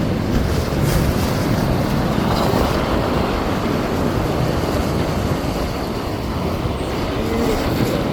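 Ocean surf washing in over shoreline rocks, a steady rush of noise, with wind rumbling on the microphone.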